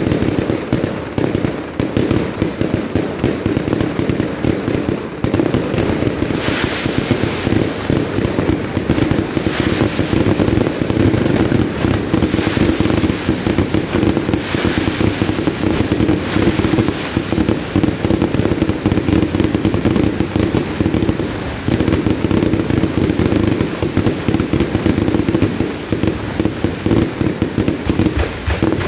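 Fireworks display firing a dense, unbroken barrage of rapid bangs and crackling, with bursts of hiss here and there.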